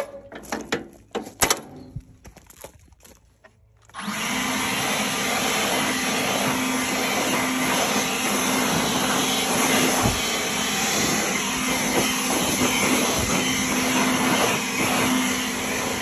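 Scattered knocks and scraping of sawdust being cleared from a Wood-Mizer LX25 sawmill, then about four seconds in a motor-driven blower starts abruptly and runs steadily with a low hum, blowing sawdust off the band wheel housing.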